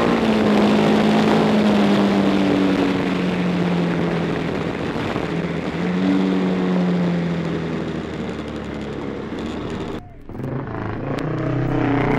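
On-board sound of a 1962 Matchless G50 racing motorcycle's single-cylinder four-stroke engine, heard over wind rush. The revs fall away for several seconds, jump up about six seconds in and fall again. The engine sound cuts off suddenly about ten seconds in.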